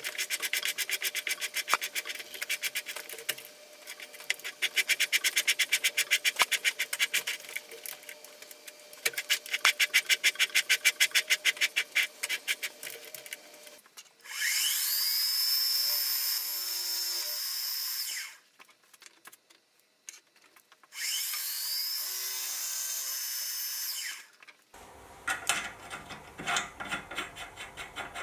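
Metal lathe cutting a thread on a steel tool holder in three passes, a rapid even ticking that stops between passes. Then a milling machine's end mill spins up with a rising whine and cuts the threaded part twice, each a loud steady high-pitched run that cuts off suddenly, followed by scratching and rubbing as the part is handled in a vise.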